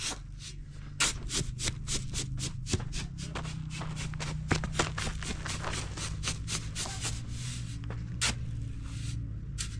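Steel shovel scraping and digging into a pile of fine gravel, with the stones crunching and rattling in quick gritty runs. A steady low hum lies underneath.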